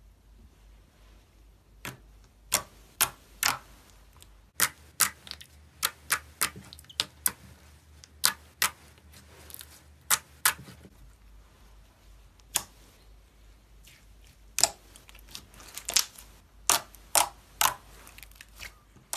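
Thick, glossy blue slime being pressed, folded and squeezed by hand, giving sharp, irregular pops and clicks. The pops start about two seconds in and come singly and in quick clusters.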